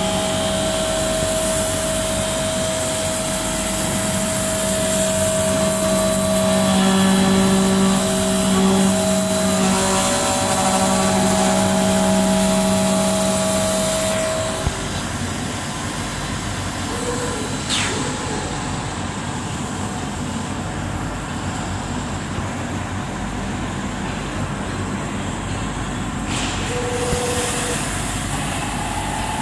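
CNC glass working center running, likely dressing its polishing wheels: steady machine noise with several held humming tones that stop about halfway through. A steady rushing noise carries on after, with a brief sharp swish a few seconds later.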